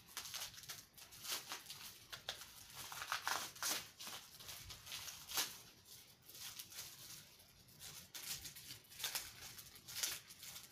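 Plastic bubble-wrap packing bag crinkling and rustling irregularly as it is pulled open by hand, with a paper card rustling.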